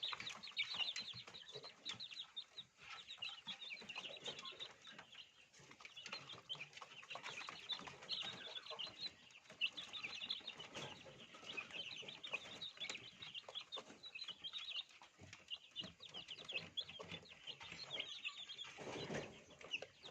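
A flock of chickens calling continuously, a dense stream of many short, high-pitched peeps overlapping one another.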